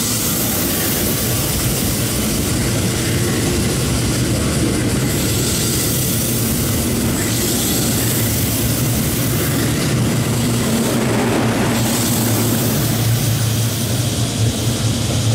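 Kintetsu 50000-series Shimakaze electric train passing close by: a steady low running hum from the cars' equipment, with the rumble of wheels on the rails swelling and fading as the cars go past.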